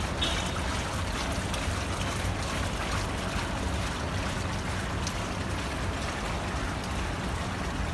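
Several bubbler fountain jets in a shallow ornamental pool, water splashing and bubbling steadily.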